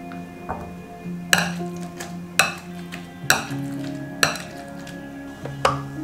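Five sharp clinks about a second apart: a metal utensil knocking against a glass mixing bowl, over steady background music.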